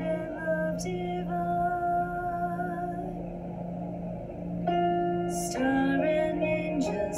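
A woman singing a slow Christmas song in long held notes over a steady instrumental accompaniment.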